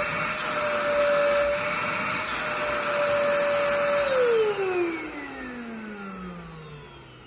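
Total Tools PZ-18/1100 ash vacuum cleaner's motor running steadily with a high whine and airflow hiss, then switched off about four seconds in, its whine falling in pitch and fading as it spins down.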